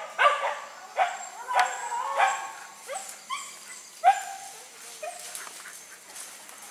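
Dogs barking and yelping in short, high calls, one every second or so, growing fainter toward the end.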